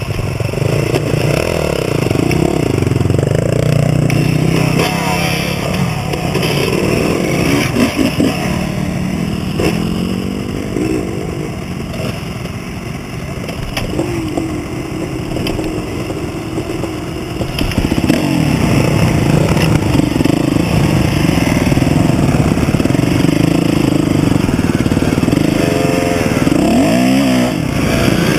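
Dirt bike engines running and revving as a group of off-road motorcycles ride, heard from a camera on one of the bikes, with the engine pitch rising and falling as the riders work the throttles. A quick rev rises and falls near the end.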